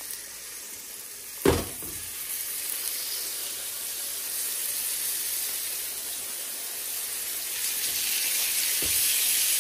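Raw seasoned steaks sizzling in hot oil in a frying pan, the hiss growing louder as more pieces are laid in. A sharp thump about a second and a half in, and a lighter knock near the end.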